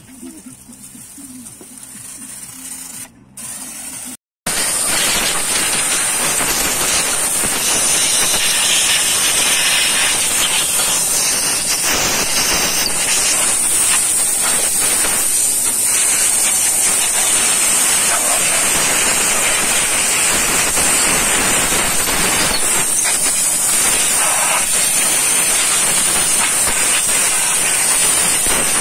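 Pressure washer jet spraying water over a pickup's engine bay. It is quieter for the first four seconds, then after a brief break becomes a loud, steady hiss.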